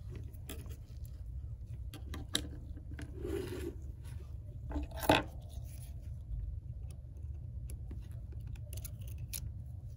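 Small hand tools (a precision screwdriver and tweezers) clicking and scraping against the metal bracket and parts inside an opened iPhone X, in scattered light ticks with a sharper tap about five seconds in. A steady low hum runs underneath.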